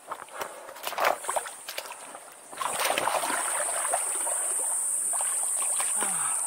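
Water splashing and sloshing as a person gets into a river and moves about swimming. Scattered splashes come first, then a steadier wash of water noise with a high, steady drone that gets loud about two and a half seconds in.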